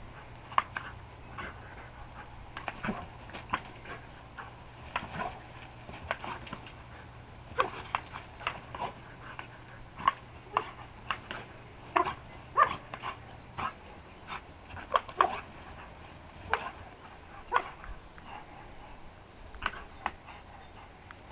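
Dog barking and yipping in many short, irregular barks while it plays in the spray from a garden hose.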